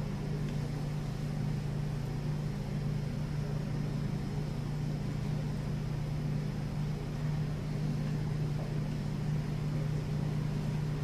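Room tone of a large gymnasium: a steady low hum over a quiet background hiss, with no music or speech.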